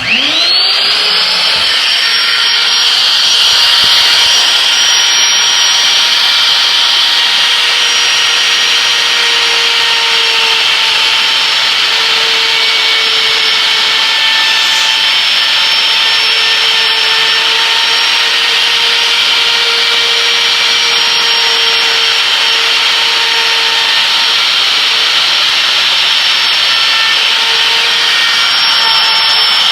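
Electric wood router switching on, its whine rising to full speed within about a second, then running steadily as it cuts a butt hinge mortise into a door through a hinge template.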